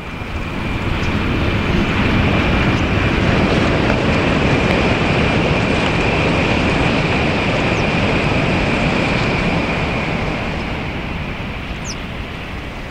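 Tokaido Shinkansen bullet train passing at speed: a loud rushing noise with a steady high whine, swelling over the first two seconds, holding, then fading over the last few seconds as the train runs off.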